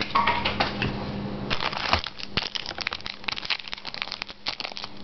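Trading-card pack wrappers crinkling and cards being handled through the hands, a run of quick, irregular crackles and clicks over a faint steady hum.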